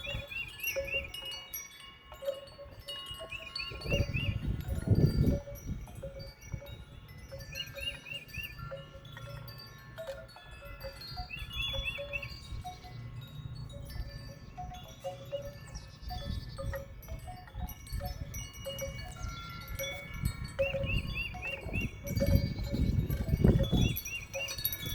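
Wind gusting over the microphone, rising into stronger gusts about four seconds in and again near the end, with wind chimes ringing in scattered clear tones. About six short groups of quick high chirps sound through it.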